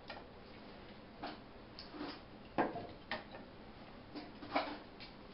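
Split ash kindling knocking and clattering as it is laid in a wood stove's firebox: about half a dozen short wooden clacks at uneven intervals, the loudest about two and a half seconds in.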